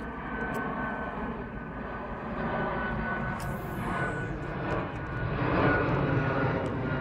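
Twin-engine jet airliner flying overhead: a steady jet-engine rumble with a thin, high engine whine, growing louder in the second half as the plane comes closer.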